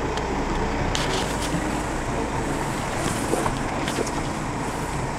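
Off-road 4x4's engine running, heard from inside the cab, with a few short knocks and rattles about a second in and again around three to four seconds in.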